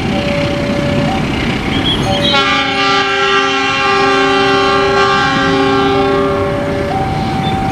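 Train horn sounds a steady multi-tone chord for about four and a half seconds, starting about two seconds in, over the rumble of a train. Beneath it, a two-tone warning signal keeps switching between a lower and a higher note about once a second.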